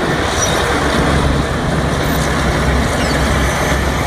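Large crawler bulldozer's diesel engine running steadily as the machine pushes a load of loose dark material with its blade.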